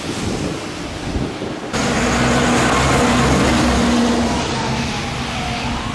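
Road traffic with wind on the microphone. After a cut about two seconds in, a vehicle's engine hums steadily. An approaching emergency vehicle's siren winds slowly down and starts rising again near the end.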